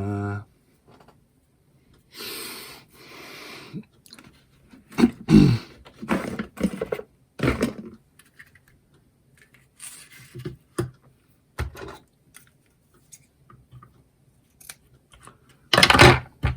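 Ribbon being handled and tied into a simple knot on a paper card: intermittent rustling and scraping with a few light clicks, loudest in a short burst near the end.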